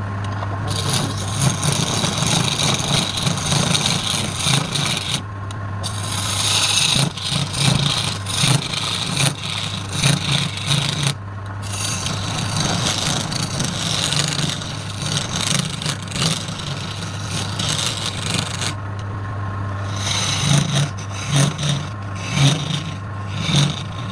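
Wood lathe running with a steady hum while the spinning wood is worked, making a scraping, rasping sound in long passes broken by three short pauses.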